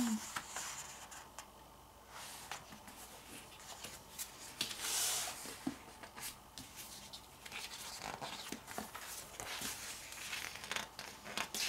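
Handling of a thick photobook as its pages are turned: paper rustling and small taps, with a brief soft swish about five seconds in.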